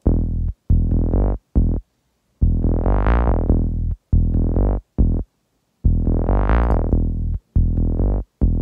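Serum software-synth bass line playing short stabs and longer held notes with a heavy sub, its filter cutoff opening and closing so the longer notes brighten and darken again. It is heard through Logic's Multipressor multiband compressor, which holds down the band where the cutoff opens.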